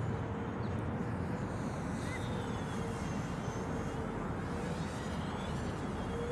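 A radio-controlled model airplane's engine running at a steady, slightly wavering pitch, faint under a steady low rumble.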